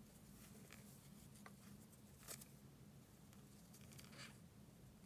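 Near silence: faint rustling and a few small ticks from a metal crochet hook pulling yarn through stitches, the clearest a little past two seconds in, over a low steady hum.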